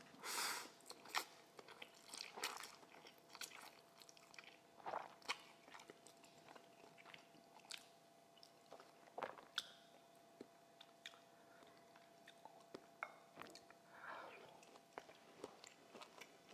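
Faint close-up sounds of a person eating jjapaguri noodles with chopsticks: chewing and mouth sounds broken by many small scattered clicks.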